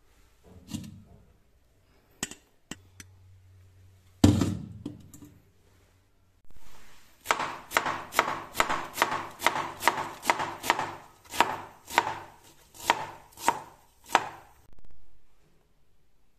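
Kitchen knife shredding cabbage on a cutting board: a steady run of sharp chopping strokes, about three a second, each knocking on the board. There is a single heavy knock about four seconds in.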